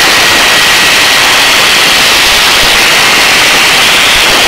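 Helicopter turbine and rotor noise as a steady, loud, even hiss.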